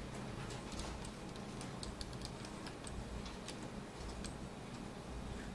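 Light, irregular clicking of a computer mouse, several clicks a second, over a low steady hum.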